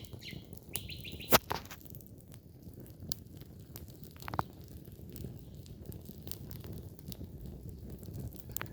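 Wood fire burning with a low rumble and scattered crackles and pops, one loud pop about a second and a half in. A bird chirps in the first second or so.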